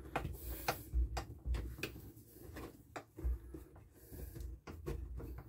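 Scattered clicks, taps and scrapes of a screwdriver and hands working on a chainsaw's plastic housing, with a few soft low knocks.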